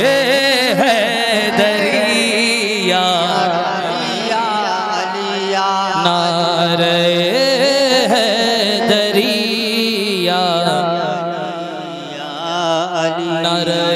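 A man singing an Urdu devotional kalam (manqabat) through a microphone and PA, drawing out long wavering melismatic notes with no clear words, over a steady low drone. The voice eases off briefly about twelve seconds in, then picks up again.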